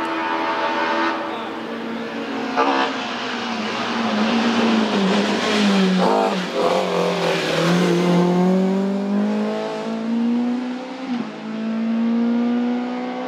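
BMW M3 E30 hillclimb race car's engine running hard under load, its pitch falling over the first eight seconds and then climbing steadily again, with sharp cracks at gear changes about two and a half and six seconds in.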